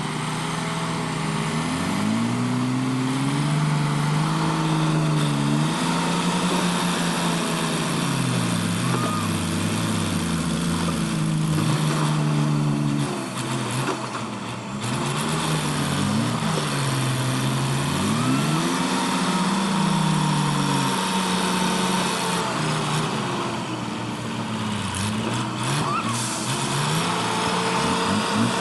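Truck engine revving up and dropping back over and over as it works through a difficult crossing, its pitch rising and falling every few seconds.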